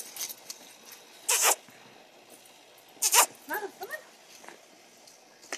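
Boots crunching in deep snow, two loud steps about a second and a half apart, followed by a small terrier whining in a few short, wavering cries.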